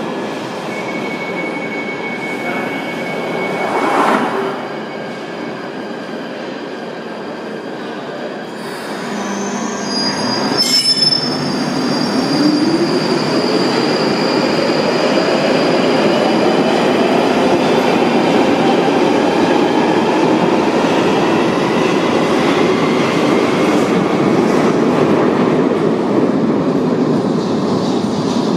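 London Underground 1995 Stock train closing its doors and pulling out of the platform. High squealing tones and a click come about ten seconds in, then a whine rises steadily in pitch as the train accelerates away, the noise staying loud as the cars pass.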